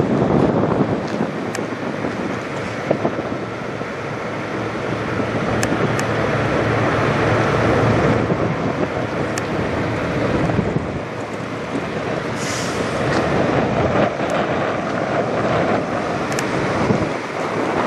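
Semi truck's diesel engine idling close up: a steady, wavering rumble, with a brief hiss about twelve seconds in.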